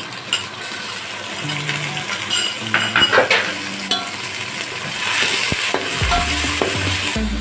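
Yogurt sizzling as it is stirred into onions frying in hot oil, with a metal spoon scraping and clicking against the metal pot. The hiss swells about five seconds in.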